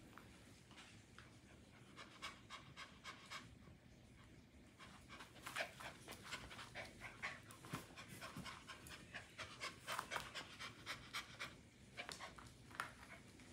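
A small dog panting in quick, faint breaths, coming faster and more steadily from about five seconds in.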